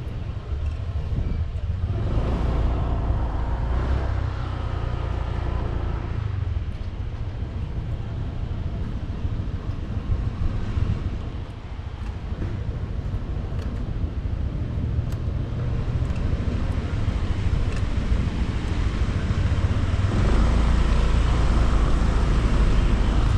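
Motorcycle engine running on the move, with road and wind noise; it grows louder near the end.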